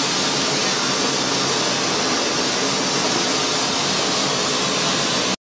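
Small grain flour mill machine running and milling grain: a loud, steady whirring hiss from the motor and grinding.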